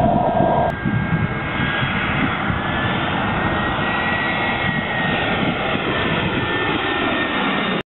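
Twin-engine jet airliner passing low overhead on its landing approach: loud steady engine roar with a high whine that rises a little in pitch and then falls back.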